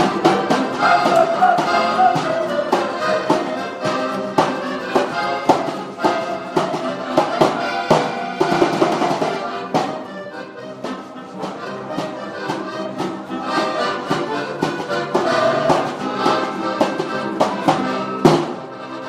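Live music from a group of players jamming together, several pitched instruments at once with frequent sharp percussive hits; the playing grows somewhat quieter about halfway through.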